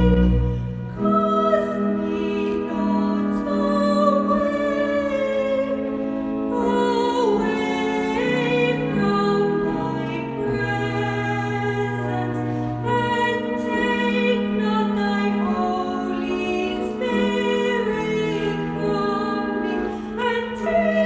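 Slow church music: sustained organ-like chords with singing above them, moving from chord to chord at a hymn-like pace.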